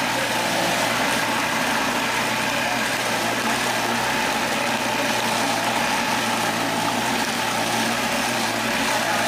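Engine-driven cassava grinding machine running steadily as peeled cassava tubers are fed into its hopper and grated.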